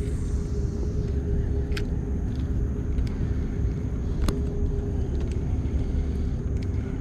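Steady low engine rumble with a constant hum, and a couple of faint ticks.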